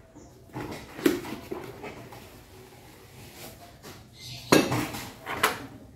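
Kitchen items being set down and handled on a wooden tabletop: a sharp knock about a second in and two more near the end, with softer handling noise between them.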